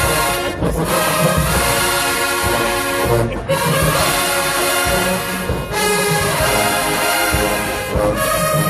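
HBCU marching band playing loud brass music, with short breaks between phrases about every two to three seconds.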